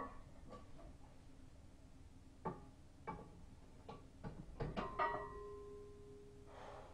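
Loaded steel barbell being set down onto a power rack's metal hooks: a few sharp metal clanks in quick succession, the loudest near the end, which leaves a short ringing tone.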